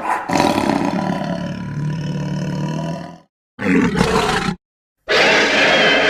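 Baragon's roar, the Toho kaiju monster sound effect: one long roar of about three seconds, then a shorter one about a second long. A third, steady, loud sound begins about five seconds in.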